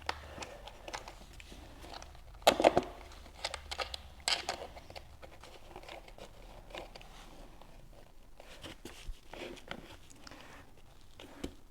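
Scattered handling noises: crinkling, rubbing and a few light knocks, as 3D-printed jump pads are fitted onto an electric unicycle's side. The loudest knocks come about two and a half and four seconds in.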